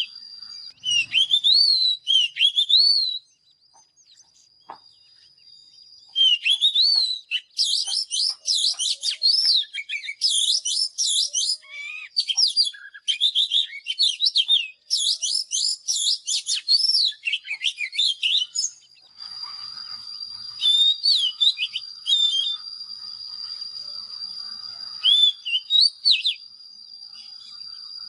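Oriental magpie-robin singing, with bursts of rapid, varied whistled phrases of sliding notes and a short quiet pause a few seconds in. A faint steady high tone runs underneath.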